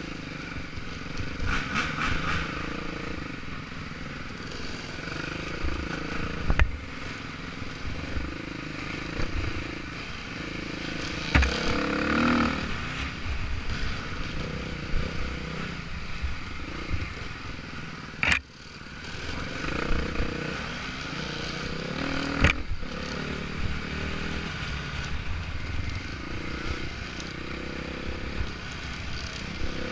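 Off-road motorcycle engine running under the rider, revving up and down on the throttle along a rough trail. Several sharp knocks cut through it as the bike jolts over the ground; just after the loudest one, past the middle, the engine briefly drops away before picking up again.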